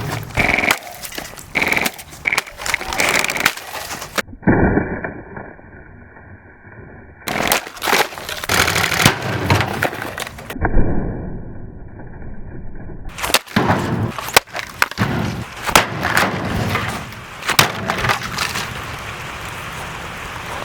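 A Pelonis table fan being smashed apart: many sharp cracking and breaking impacts, broken twice by stretches of duller, muffled sound, giving way near the end to a steady hiss.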